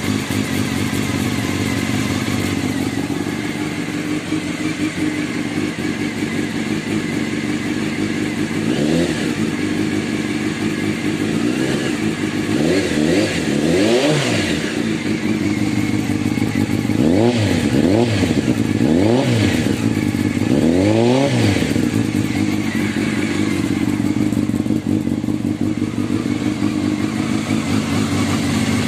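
Honda CBR600F2's inline-four engine idling steadily, with a run of about eight short throttle blips in the middle stretch, each rev rising and falling back to idle. The owner says the engine has started running differently, with an extraneous noise he takes for a knock in the engine.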